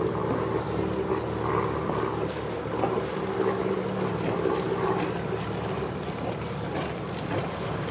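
Boat engine running steadily at low speed, a low even drone.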